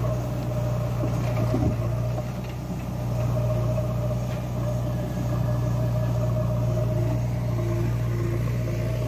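Diesel engine of a JCB backhoe loader running steadily, a constant low drone.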